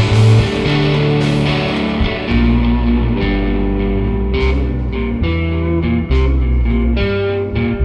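Rock band playing: electric guitar over drums and low bass notes, with a run of sharp cymbal and drum hits in the second half.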